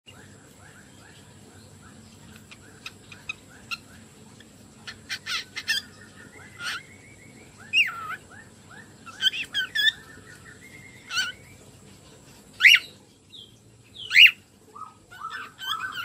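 Cockatiel singing. It opens with a quick run of soft, repeated chirps, then moves into louder whistled notes that slide up and down. The loudest whistles come a few seconds before the end.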